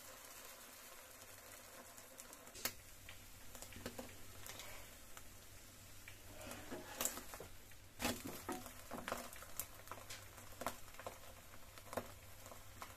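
Egg omelette sizzling faintly in oil in a nonstick frying pan, with a plastic spatula now and then scraping and tapping against the pan as the omelette is spread and turned.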